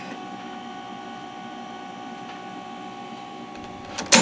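Macintosh SE and Iomega Zip 100 drive running: a steady hum with several faint whining tones, and one sharp clack near the end.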